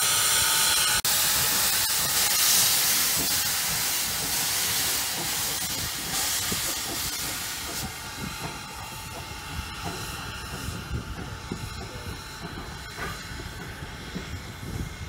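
Steam locomotive No. 382 hissing steam from its open cylinder cocks as it backs up. The hiss is loud for the first half and fades gradually over the second half as the engine moves away.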